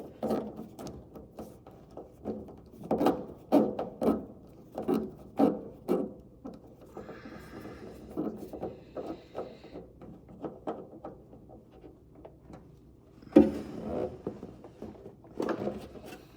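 Irregular knocks and scraping from hand work on the fasteners of a car's front spoiler, reached through the wheel well, with a stretch of harsher scraping in the middle and one sharper, louder knock about 13 seconds in.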